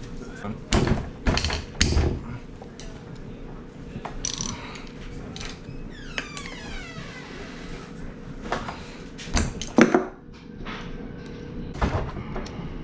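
Metal tools clinking and knocking against a Honda CRF150R engine while its covers are being unbolted, with several sharp clanks.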